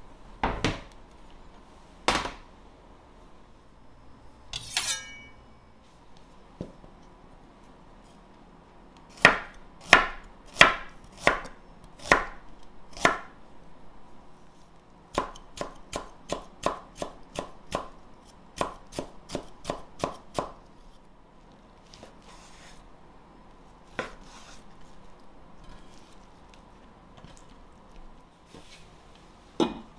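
Chef's knife cutting ginger on a wooden cutting board: sharp knocks of the blade meeting the board. There is a run of slow single cuts, then a quicker run of about a dozen, with a brief scrape about five seconds in.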